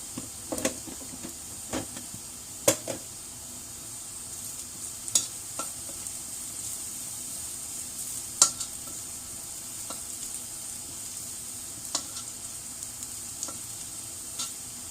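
Garlic frying in oil with a steady high sizzle, and a utensil knocking against the pan every few seconds as it is stirred.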